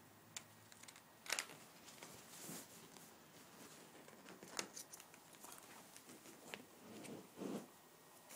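Ferrets scrabbling through sofa cushions and pillows: faint scattered rustles and scratches of fabric, with a sharper crackle about a second in, another near the middle, and a longer rustle near the end.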